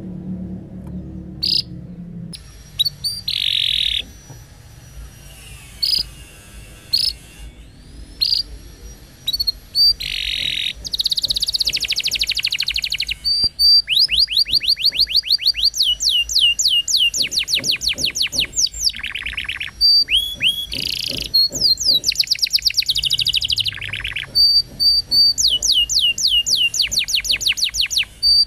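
Domestic canary singing: short chips and gliding whistled notes broken by long, fast rolling trills, the longest about halfway through and again near the end. A low hum sounds in the first two seconds.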